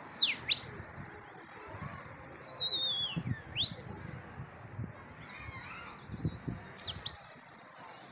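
Shrill whistling by a pigeon flyer to the circling flock. There are two long whistles, each starting with quick swoops down and up and then gliding slowly downward for two seconds or more. A short rising whistle falls between them, and the second long whistle begins about seven seconds in.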